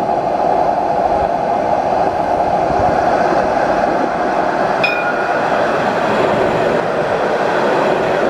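Jerusalem Light Rail Alstom Citadis tram rolling on its rails as it approaches and passes close by, a steady running noise. A brief high ring sounds about five seconds in.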